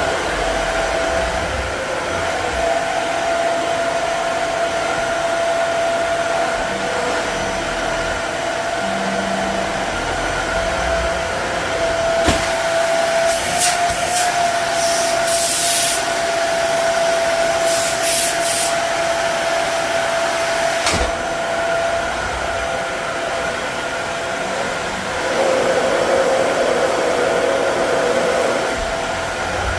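Dyson Ball Animal 2 upright vacuum cleaner running on carpet: a steady motor whine over rushing air. From about twelve seconds in, a louder hiss comes and goes for several seconds.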